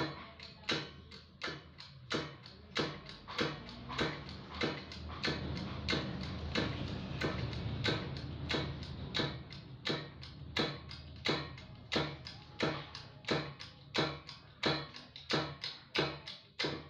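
A hand-pumped hydraulic bottle jack being worked, its handle clicking at an even pace of about twice a second as the ram presses a submersible motor's stator coil into the casing. A low steady hum runs underneath.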